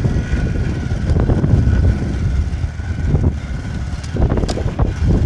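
Wind buffeting a phone's microphone: an uneven low rumble, with a few brief knocks from the phone being handled.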